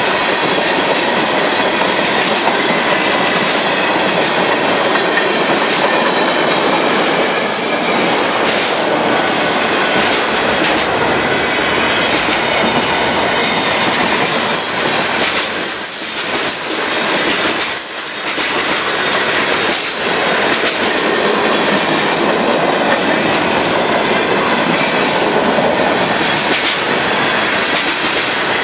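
Union Pacific freight train's cars, mostly tank cars, rolling past close by: a steady loud rumble and clatter of steel wheels on the rails, with brief high-pitched wheel squeal around the middle.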